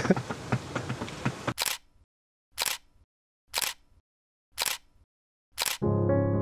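Camera shutter clicks, four of them about a second apart with dead silence between, after background noise cuts off abruptly about a second and a half in. Piano music starts near the end.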